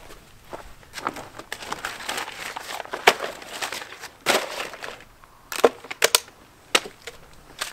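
Brown paper bags crinkling and crumpling as they are handled, followed by a few short, sharp crackles near the end.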